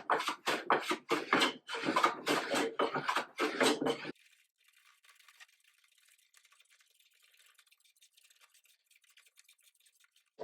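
Joiner plane cutting shavings off a board in a quick run of short, scraping strokes, taking down the high corners. The planing stops suddenly about four seconds in, followed by near silence.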